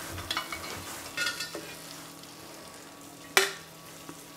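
Shrimp and onion sauce sizzling faintly in a cast-iron casserole just taken off the heat, with a metal spoon stirring and scraping in the pot and a few small clicks. One sharp metal clank of the spoon about three and a half seconds in.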